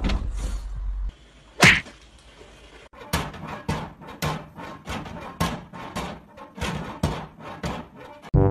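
A dog's claws scrabbling and tapping on a glass door pane for about the first second. After a single sharp knock, a run of irregular clacks follows, roughly two a second, as a cat bats at a cat flap and the flap knocks in its frame.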